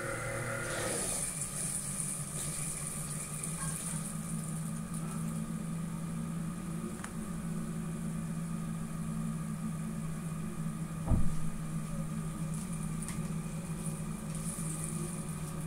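Automated PCB-making machine in its washing stage, its water pump and motors running with a steady hum and a faint high hiss. One short knock about eleven seconds in.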